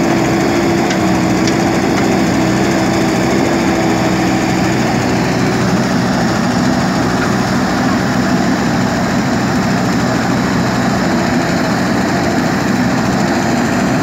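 JCB 3DX backhoe loader's diesel engine running steadily while the backhoe arm works.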